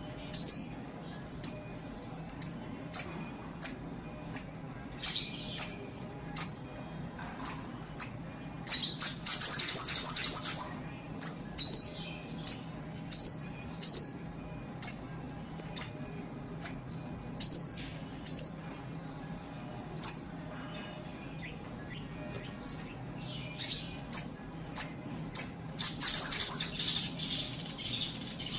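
Kapas tembak songbird calling: a run of short, high notes that slide downward, about one or two a second, broken twice by a louder rapid chattering burst, about nine seconds in and again near the end.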